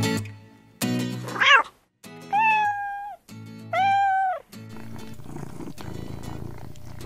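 Cartoon cat sound effects over light music: a short rising cry, then two drawn-out meows about two and a half and four seconds in, followed by a steady purr.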